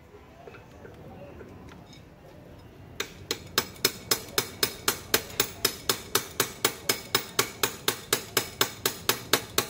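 Sharp taps in an even run, about three a second, beginning about three seconds in.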